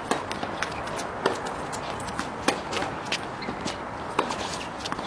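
Tennis being played: sharp, irregular knocks of the ball on racquets and court, with players' footsteps, over a steady background hiss.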